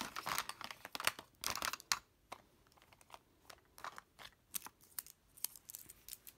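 Plastic makeup compacts clicking and clacking against each other, with short rustles, as they are handled and sorted by hand.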